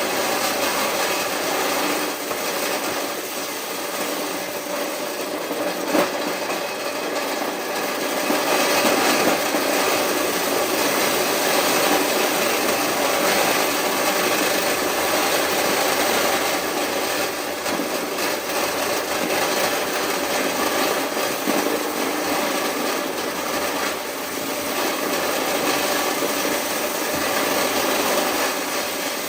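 Corn-shelling machine running steadily with a dense, rasping rattle as kernels are stripped from the cobs. A single sharp knock about six seconds in.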